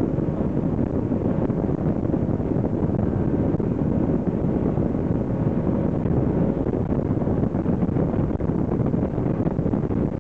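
Steady rushing wind buffeting the microphone aboard a moving boat, with the low rumble of the boat and water beneath, unchanging throughout.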